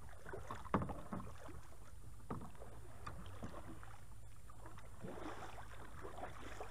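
A few light knocks and handling noises in a fishing kayak as a largemouth bass is brought aboard: one about a second in and another about two and a half seconds in, over a low steady rumble.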